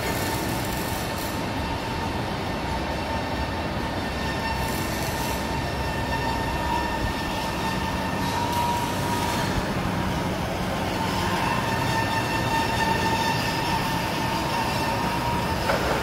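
Steady machinery noise on a metal fabrication shop floor, with a steady high whine running through it.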